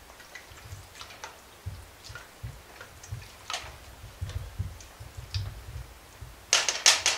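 A spoon stirring thick chowder in a stainless steel stock pot, with faint scattered clicks and scrapes against the pot. Near the end, a quick run of loud sharp clacks of the spoon against the pot.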